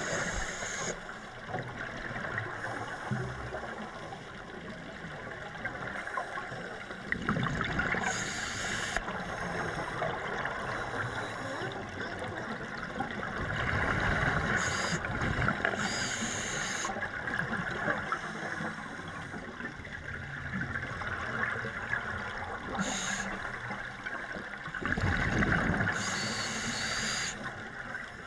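Scuba regulator breathing heard underwater through a camera housing: every several seconds a surge of exhaled bubbles and a hissing inhale, over a steady muffled water hiss.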